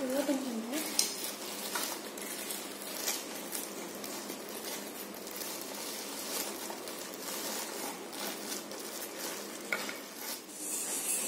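Clear plastic packaging crinkling and rustling as it is handled and pulled off a bicycle floor pump, with many small sharp crackles.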